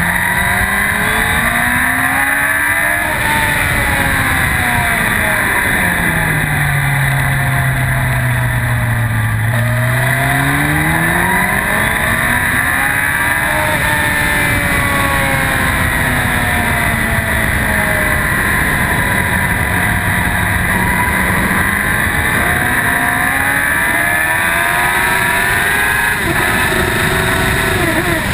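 2004 Yamaha R1's inline-four engine pulling hard on a race track, heard from a camera on the bike. Its pitch swings down and back up several times as it slows into bends and accelerates out of them, over constant wind rush.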